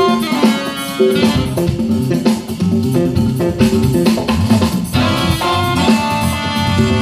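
Live jazz band playing: a moving electric bass line with congas and drums, and busy plucked-string melody on top.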